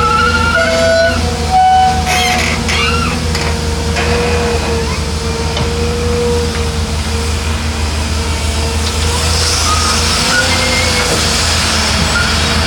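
Heavy diesel earthmoving machinery running steadily under a constant low engine tone, with a slowly wavering whine above it. There is a short hiss about two seconds in.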